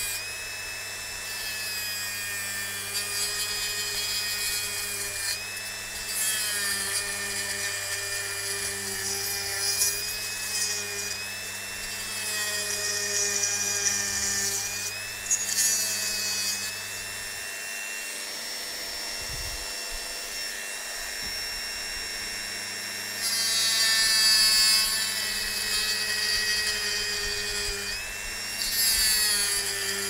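High-speed rotary tool with a small cut-off wheel running and cutting into a plastic connector housing: a steady high whine that dips and recovers as the wheel is loaded, with gritty cutting hiss that grows louder in bursts about two-thirds of the way through and again near the end.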